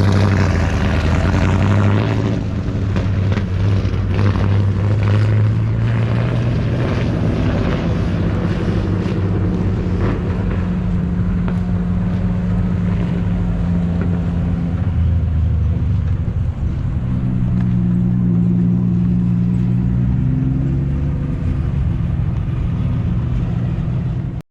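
A vehicle engine running steadily at a low, even pitch, dipping and rising again about two-thirds of the way through; the sound cuts off suddenly at the end.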